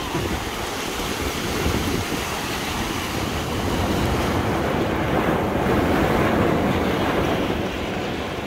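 Ocean surf breaking and washing up a pebble beach, with wind on the microphone. The wash swells a little through the middle.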